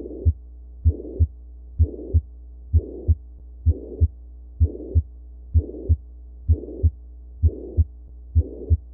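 Heart sounds of a ventricular septal defect: paired lub-dub beats at about 65 a minute, with a holosystolic murmur filling each gap between the first and second heart sounds, over a steady low hum.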